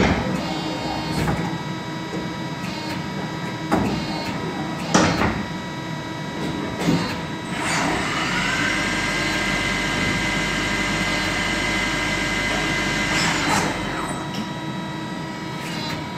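INDEX ABC CNC lathe running, with a steady whine of its drives and several sharp clunks as the tool turret and slides move. About eight seconds in, a spindle whine rises in pitch, holds steady for about five seconds, then drops away.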